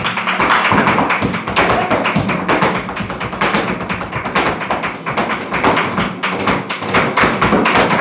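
Flamenco performance: a dancer's rapid percussive footwork striking the stage, with hand clapping (palmas) and flamenco guitar underneath. The strikes come fast and unevenly, several a second.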